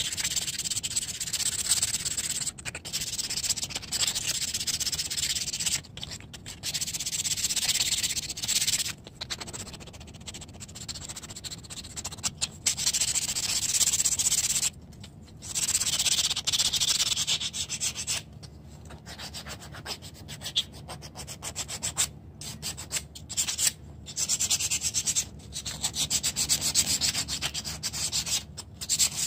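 Walnut butter knife blade being hand-sanded with a folded sheet of sandpaper: quick back-and-forth rubbing strokes, stopping briefly every few seconds.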